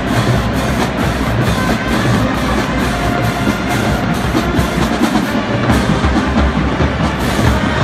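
Marching band playing over a steady, pounding drumline beat with bass drums.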